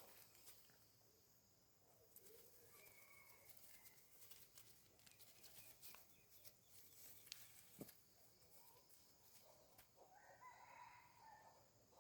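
Near silence, with scattered faint clicks and a couple of faint chirp-like calls, one early and one near the end.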